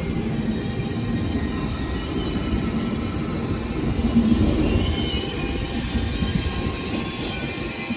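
Train moving on the rails: a steady low rumble with faint thin high-pitched squealing tones, briefly louder about halfway through.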